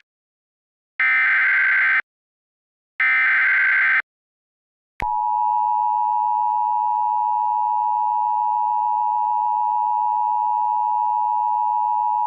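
Emergency Alert System (EAS) alert signals. First come two bursts of SAME header data, each a harsh digital screech about a second long and a second apart. About five seconds in, the steady two-tone EAS attention signal starts and holds.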